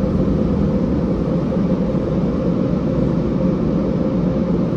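Steady, loud rushing noise heard from inside a car, with a faint steady hum under it.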